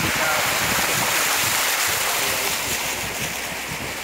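Steady rushing wind noise over the microphone with the low rumble of a moving vehicle.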